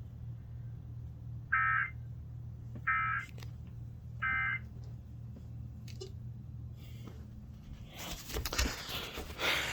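Emergency Alert System end-of-message data bursts: three short, shrill warbling bursts about 1.3 s apart, the signal that the alert message is over, played through a TV's speakers over a low steady hum. A rustle near the end.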